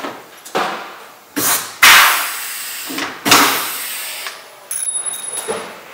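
Pneumatic rivet gun setting rivets that fasten a handle to a plastic door: several sharp snaps, each followed by a hiss of air, the loudest about two seconds in, then a short fast rattle near the end.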